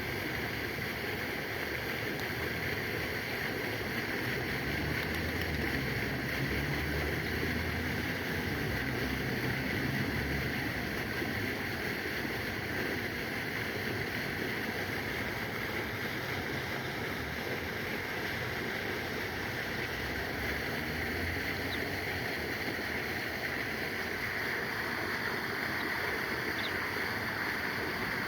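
Steady rushing of moving water, with a low rumble underneath.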